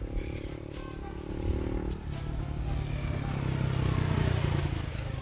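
A motor vehicle passing on the road, its engine growing louder to a peak about four seconds in and then fading away.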